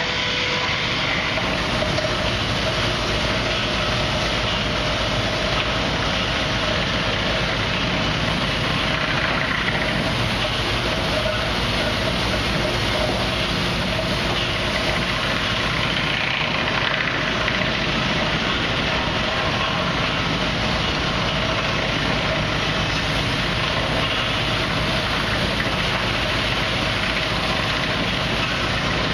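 Steady, unbroken din of sawmill machinery running together: a Wood-Mizer LT50 band sawmill and an edger working rough oak.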